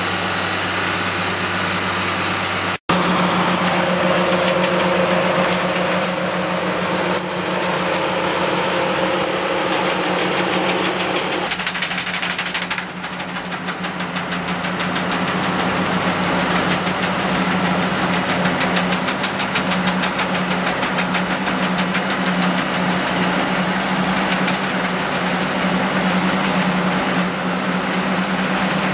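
Straddle olive harvester at work over a hedgerow row of olive trees: its engine and shaking head running steadily as the machine strips the branches. The sound drops out for an instant about three seconds in.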